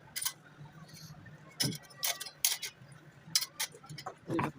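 Irregular metallic clicks and clinks, about eight spaced unevenly, from tools and metal parts being handled during a clutch repair.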